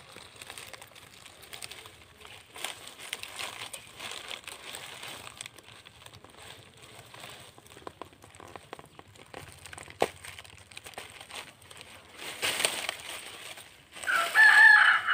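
Dry areca palm leaf strips rustling and crackling as they are handled and woven into a broom with thin plastic strips, with a louder rustle a little after halfway. Near the end a loud, held call rises over it for about a second and a half.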